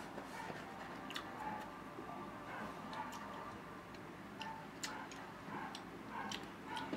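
Close-up chewing of crisp, unripe green Indian mango slices: sharp, irregular crunches and clicks from the mouth.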